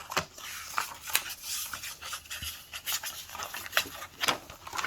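Paper rustling and rubbing, with a run of short scrapes and ticks: the pages of a book being handled and turned.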